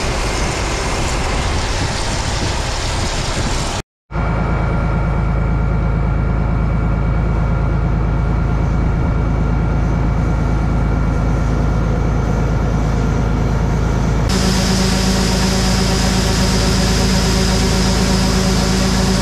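Heavy farm machinery running steadily, heard in spliced-together clips: a rushing machine noise first, a brief dropout about four seconds in, then a steady engine drone that changes to a louder, deeper hum about fourteen seconds in.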